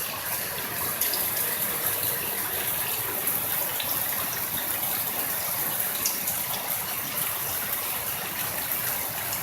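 Torrential rain pouring down steadily, a dense, even hiss with a few sharper drop impacts.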